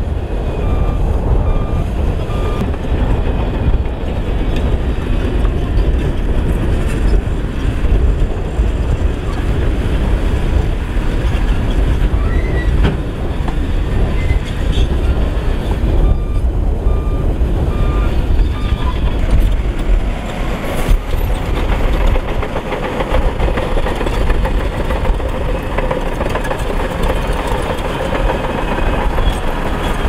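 Diesel engines of heavy earthmoving machinery running steadily. A reversing alarm beeps about twice a second for a couple of seconds near the start and again for a few seconds about halfway through.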